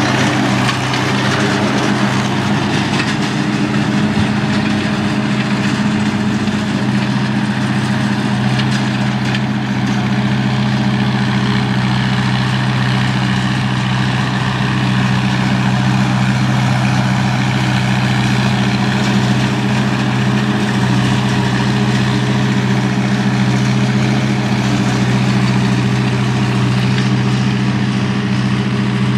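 Engine running at a steady, unchanging speed close by.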